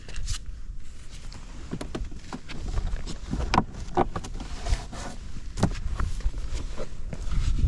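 Suzuki Let's II scooter's small two-stroke single-cylinder engine running with a low, steady rumble, with scattered clicks and knocks over it.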